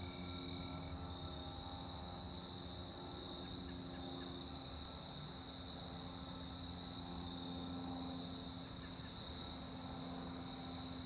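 Steady evening insect chorus, with a higher insect call pulsing irregularly over it. Under it runs the faint, steady low drone of a single-engine Cessna 206 light plane flying high overhead.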